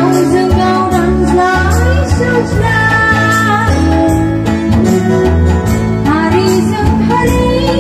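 Live Bodo gospel song: a woman singing over a side-blown bamboo flute melody and keyboard, with a steady bass and drum beat.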